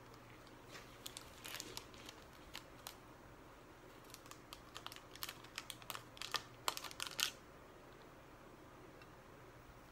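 Gold foil blind-pack wrapper crinkling as it is handled and cut open with scissors: a run of sharp crackles and snips that grows louder and stops about three quarters of the way through.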